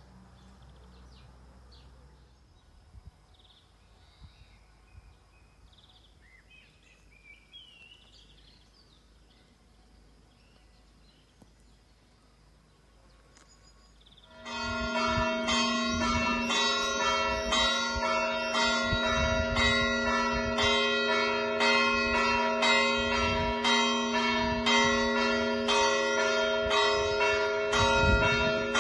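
Quiet outdoor stillness with a few faint bird chirps. About halfway through, church bells suddenly start ringing loudly, several bells struck again and again in a dense, continuous peal.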